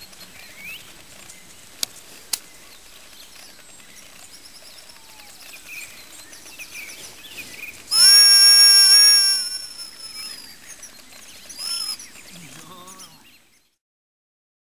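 A single long, loud, high-pitched blast on a gundog whistle, about a second and a half long, about eight seconds in, the usual signal to a retrieving spaniel; faint bird chirps before it.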